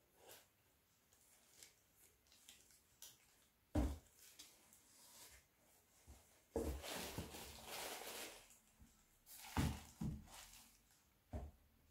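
Handling sounds of a pair of slide sandals over a tissue-lined shoe box: soft knocks as they are turned and set down, a sharp one about four seconds in and two more near the end, and a stretch of tissue-paper rustling in the middle.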